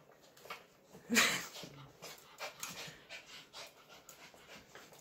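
Small white spitz-type dog wiping its face and rubbing its body on a towel: scratchy rustling of fur on cloth, with one short, loud dog sound about a second in.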